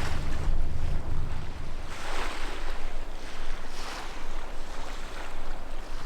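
Sea waves breaking and washing onto a beach, the surf swelling and falling back several times, with some wind rumbling on the microphone at first.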